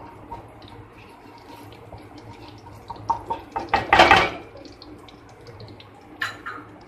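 Spatula scraping and tapping around the inside of a kadhai as ghee melts in it: scattered light scrapes and clicks, with a louder clatter about three to four seconds in and a short one near the end.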